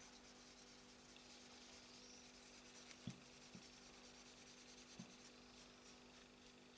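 Near silence: a cloth rag faintly rubbing over a plastic model torpedo's tip, lightly buffing wax paint, over a low steady hum, with a few soft taps about three and five seconds in.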